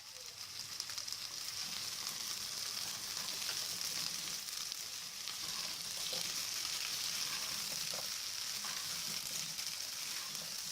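Diced potato, carrot and sweet pepper frying in hot oil with onion, garlic and ginger: a steady sizzle with a few light stirring clicks.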